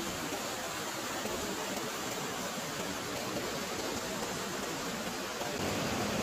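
Steady rush of flowing water from a mountain stream, an even noise without any distinct events.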